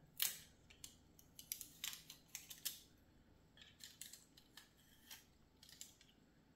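Faint, irregular clicks and small scrapes of plastic model parts being handled and pressed into place, the loudest click just after the start.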